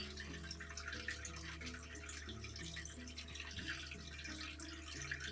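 Faint trickling and dripping water over a steady low hum.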